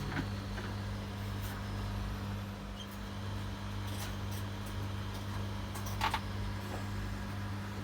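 A steady low hum with a few scattered clicks and knocks, the loudest about six seconds in.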